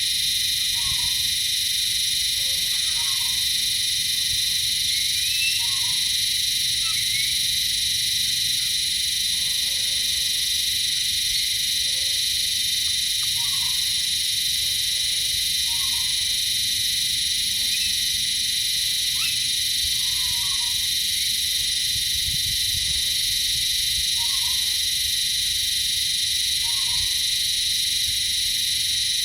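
A steady, high-pitched chorus of insects, with short frog calls repeating every two to three seconds over it.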